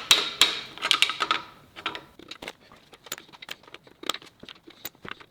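Small metal engine parts clinking against each other as they are handled: a quick run of sharp, ringing clinks in the first second and a half, then scattered light taps and rustling.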